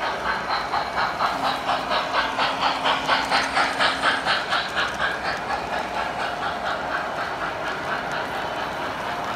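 Model freight train rolling past close by, its wheels clicking rhythmically over the track at about four or five clicks a second. The clicking swells about two seconds in and then eases off as the cars go by, over a steady running hum.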